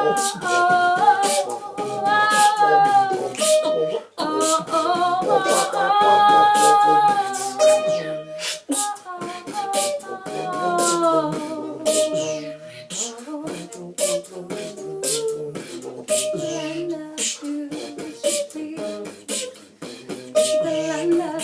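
Music: a voice singing held, wordless melodic lines over a beatboxed rhythm of sharp mouth clicks and hits.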